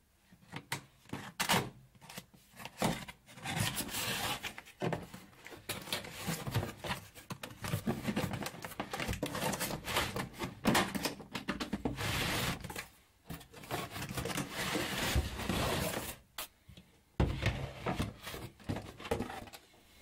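Cardboard packaging being handled and a hard plastic tool case slid out of it: irregular rubbing and scraping of cardboard against plastic, with scattered knocks and clicks.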